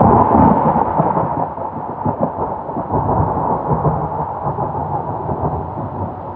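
Muddy stormwater runoff pouring in several falls down an eroded clay bank: a loud, steady rush of water with a low rumble beneath it.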